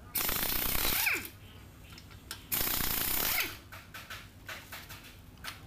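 Pneumatic impact wrench loosening the front wheel nuts: two rattling bursts of about a second each, the second about two and a half seconds in, each ending in a falling whine as the air motor spins down.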